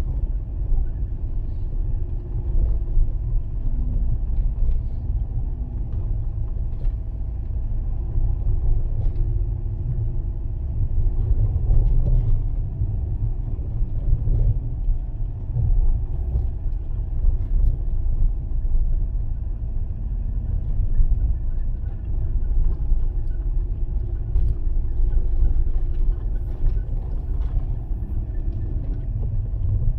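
Fiat Panda 4x4 driving on a snow-covered road: a steady low rumble of engine and tyres, with a few faint ticks.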